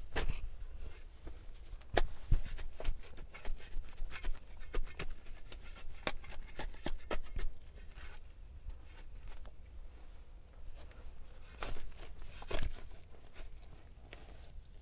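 Folding shovel chopping and scraping into root-laced forest soil, with roots and dry grass torn out by hand: a run of sharp strikes and scrapes, the hardest about two seconds in and again near the end.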